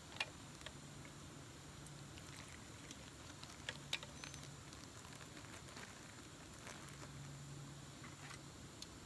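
Faint steady hiss from bannock frying in oil in a pan on a canister camp stove, with a few light clicks and crinkles from a plastic zip bag being handled.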